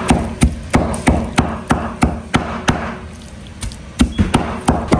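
Knife chopping fish fillet on a cutting board, mincing it into paste with steady strikes about three a second. The strikes stop briefly about three seconds in, then start again.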